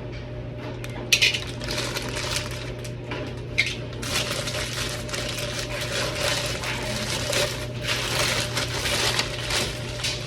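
Hard plastic security tag being handled and pried apart after its pin was cut: two sharp clicks, then a busy run of scraping and crackling from about four seconds in. A steady low hum lies underneath.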